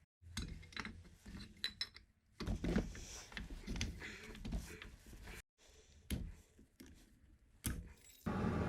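Short cut-together stretches of metal tools and engine parts clinking and clattering during engine work in a small workshop room. Near the end a steady mechanical running hum sets in abruptly.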